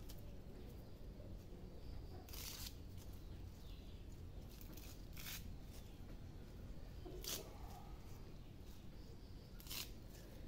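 Katuk (rau ngót) leaves being stripped off their stems by hand: four brief, crisp rustles and snaps a couple of seconds apart, faint over a low steady background hum.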